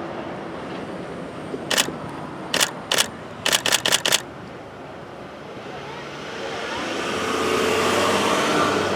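Camera shutters clicking about eight times, between about two and four seconds in, the last five in quick succession, over street traffic noise. A vehicle then approaches, growing louder toward the end.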